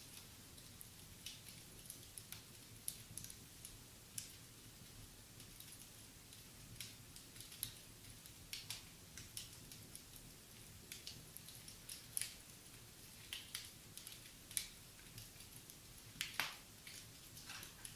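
Wood fire crackling in a fireplace: faint, irregular pops and snaps, several a second, with a louder snap about sixteen and a half seconds in.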